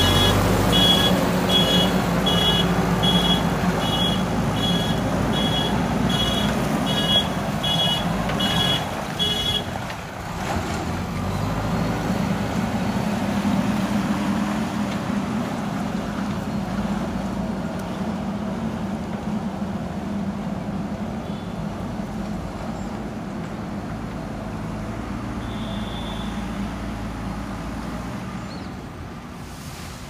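JCB 3DX backhoe loader's diesel engine running under load, with its reversing alarm beeping steadily, about three beeps every two seconds, for the first ten seconds. After that the engine keeps running as the machine drives off, and it grows fainter toward the end.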